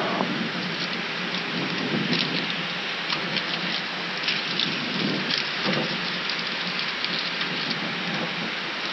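Steady rushing noise inside an Airbus A319 cockpit during taxi, the engines at idle and the air-conditioning running, with light crackling and a couple of faint thumps about five seconds in.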